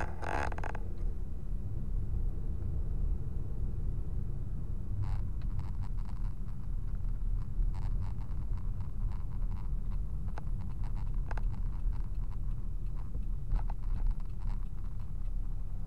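Road and engine noise inside a moving car's cabin, picked up by a dashboard camera: a steady low rumble. A brief scrape at the very start, and scattered light ticks and clicks from about five seconds in.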